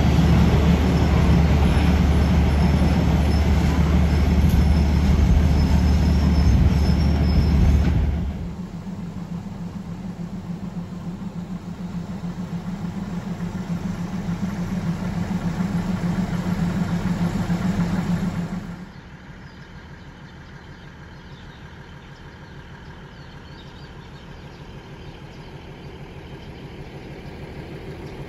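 Diesel railcar engine idling at a station, a steady low hum. It drops abruptly in level twice, about eight and nineteen seconds in, and is quieter after each drop.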